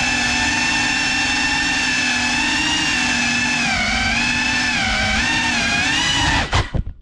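FPV quadcopter drone's motors and propellers whining steadily, the pitch wavering up and down as the throttle changes. Near the end the whine stutters and cuts off.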